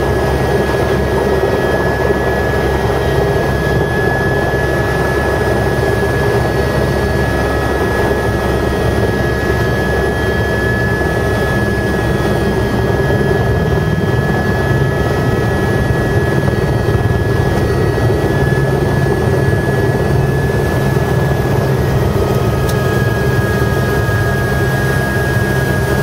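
Helicopter turbine engine and rotor running steadily on the ground after landing, heard from inside the cabin: a steady high turbine whine over a dense low drone.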